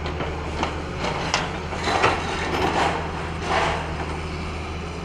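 Excavator's diesel engine running steadily under several crunching cracks and clatters of breaking concrete and masonry as its demolition jaw works the building. The loudest crunches come about two seconds in and again about three and a half seconds in.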